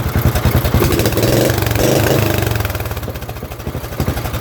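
Lawnmower engine running through a homemade exhaust with a tin-can muffler, with a fast, even chugging beat. About a second in it revs up and the beat smooths into a steadier tone, then it drops back to its chugging idle near the end.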